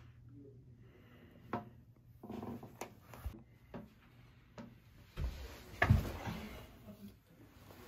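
Rustling of clothing and scattered knocks as a person shifts and doubles over in a small bathroom, with a heavier thump about six seconds in.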